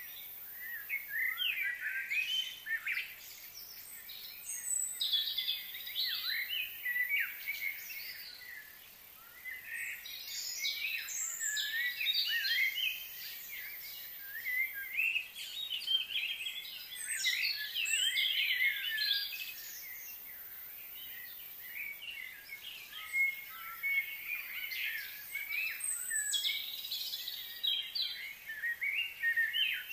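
Many small birds chirping and twittering in overlapping bouts of short sliding notes, easing off briefly about a third of the way in before picking up again.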